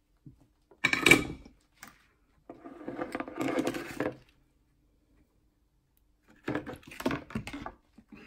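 Small metal tools and parts handled on a wooden workbench during soldering: a sharp clink about a second in, then two longer stretches of rattling and scraping.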